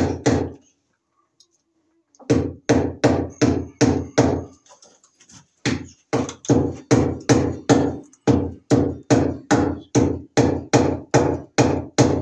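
A hammer striking repeatedly and steadily, about two or three blows a second, in three runs broken by short pauses.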